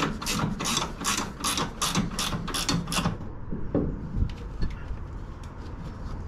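Ratchet spanner clicking fast and evenly, about four clicks a second, as the porthole's bolts are undone, stopping after about three seconds; a few fainter, scattered clicks follow.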